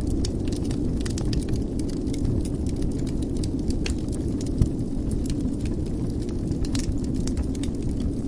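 Wood fire burning in a fireplace: a steady low rumble of the flames with many small, sharp crackles and pops scattered irregularly, one slightly louder pop about halfway through.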